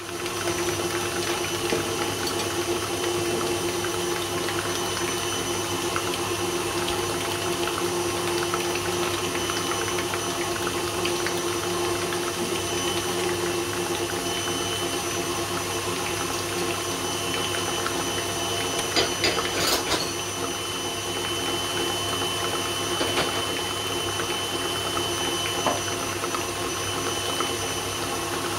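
Electric stand mixer running at a steady speed with a motor whine, its beater working cake batter in a stainless steel bowl. A few sharp clicks and knocks come about two-thirds of the way through.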